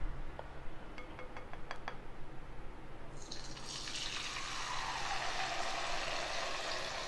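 A batter-coated pappadam frying in hot oil in a kadai. After a few faint clicks, the oil starts sizzling about three seconds in, as the pappadam goes in, and the sizzle grows steadily louder.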